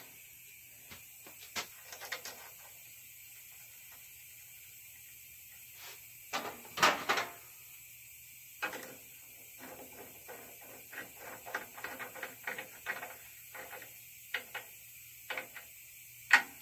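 Scattered light clicks and taps from hands working at a chrome wheel. A cluster of knocks comes about seven seconds in, a run of faint quick ticks follows, and a sharp click near the end is the loudest.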